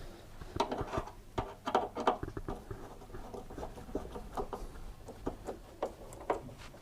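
Screwdriver retightening the bottom screws in a tumble dryer's sheet-metal chassis: a run of small, irregular clicks and light scrapes of metal on metal, several a second.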